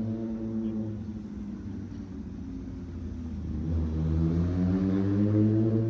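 Passenger ferry's engines running at the pier. The pitch sags about halfway through, then climbs and gets louder as the engines rev up.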